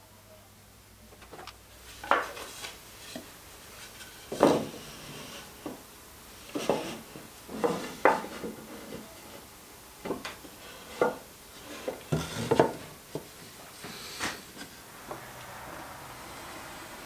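Wooden boards being handled on a workbench: chestnut and white chipboard panels set down, shifted and fitted together, giving about a dozen irregular knocks and clatters with rubbing between them.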